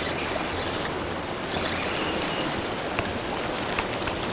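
Ocean surf washing steadily against a rocky shore, with a few light ticks in the second half.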